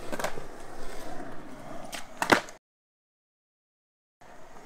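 Skateboard wheels rolling on concrete, with a knock just after the start and a loud cluster of clacks about two seconds in as the board is popped for a kickflip attempt and hits the ground. The sound then cuts off suddenly into dead silence.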